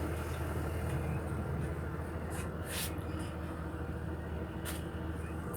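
Steady low mechanical hum, like an idling engine, with a few light clicks.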